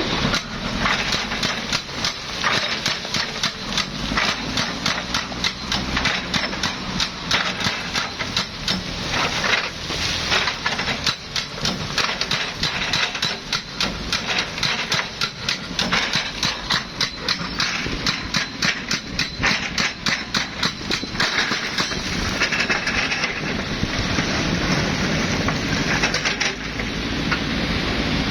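Excavator working, with a dense, irregular clatter of knocks and rattles, several a second, over a low engine rumble. The clatter eases into a steadier rushing noise about three-quarters of the way through.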